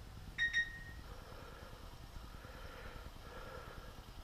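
Two short ringing metallic clinks close together about half a second in, from small metal parts and pliers being handled by hand, then only a faint steady hum.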